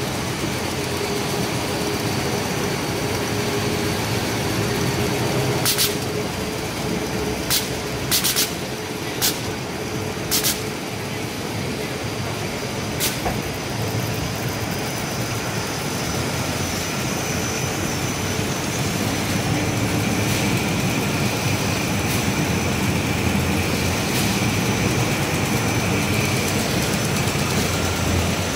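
YAOJIA YJP-900 folder gluer running: a steady mechanical rumble and whir from its rollers and belts, with a steady hum. Between about six and ten seconds in come about six short, sharp bursts.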